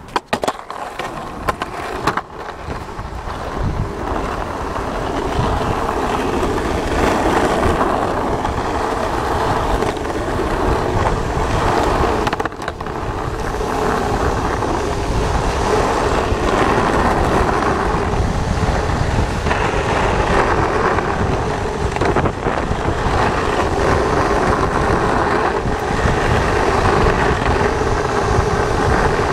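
Skateboard wheels rolling on asphalt, picked up close to the board. The rolling noise grows louder over the first several seconds as the board gathers speed, then holds steady. A few sharp knocks come in the first couple of seconds.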